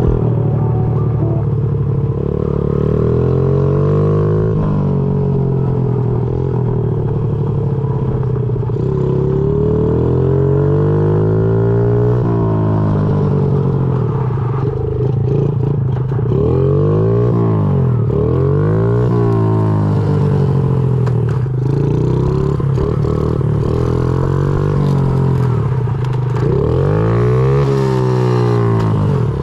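Honda CRF50's small single-cylinder four-stroke engine running under load while being ridden, its pitch rising and falling again and again as the throttle and speed change.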